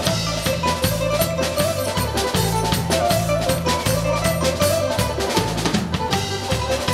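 Fast music for the Cretan pentozali dance, played with a quick, even drum beat over a repeating bass line and a melody.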